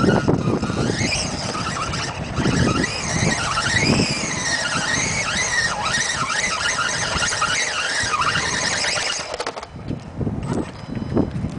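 Brushless electric motor of a 1/5-scale RC car whining, rising and falling in pitch again and again as the throttle is worked; the whine stops about nine seconds in.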